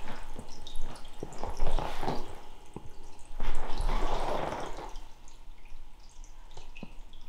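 Scattered single drips of water, with two soft rushing swells about two and four seconds in.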